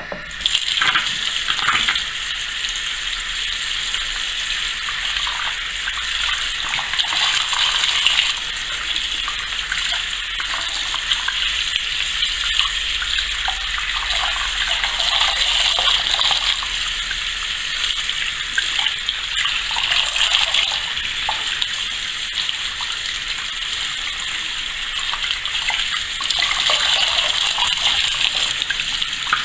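Bathroom sink tap turned on and running, its stream splashing into the basin. The sound swells and changes as hair strands are rinsed under it to wash out toner.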